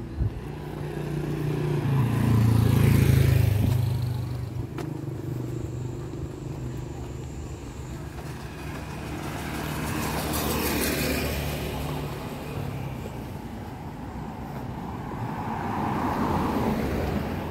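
Motor vehicles driving past on a street, one after another: three pass-bys that swell and fade, the loudest engine rumble about three seconds in.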